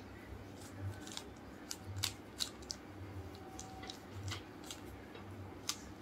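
Plastic 3x3 Rubik's cube being turned by hand: faint, quick clicks of the layers rotating, at an uneven pace of about two a second.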